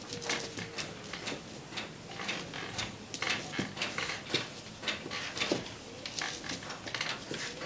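Irregular clicks and light knocks from an aluminium cooking pot and its thick fufu dough being worked, a few sharp sounds each second.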